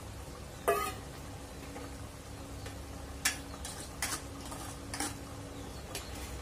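Steel kitchen bowls clinking as they are handled and set down, about five short knocks. The first, a little under a second in, is the loudest and rings briefly. A faint steady hum runs underneath.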